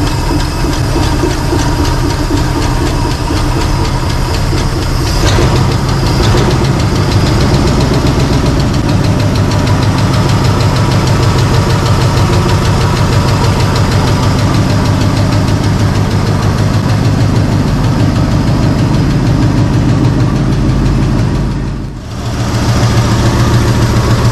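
1976 Chevrolet K20's 350 small-block V8 running steadily just after its first start in over 20 years, warming up while its hydraulic lifters pump up. The sound dips briefly near the end, then carries on.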